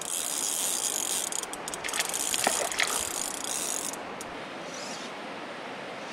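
Fly reel's click-and-pawl drag ratcheting in a rapid high buzz with a hooked trout on the line, stopping about four seconds in; the river runs steadily underneath.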